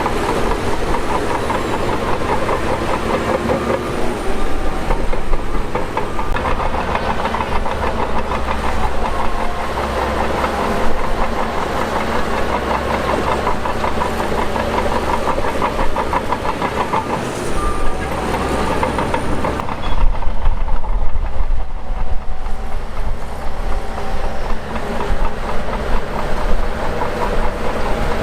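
Shantui DH17 crawler bulldozer's diesel engine running steadily, with the rapid metallic clatter of its steel tracks. Just before 20 s the higher clatter drops away and a deeper engine rumble takes over for several seconds.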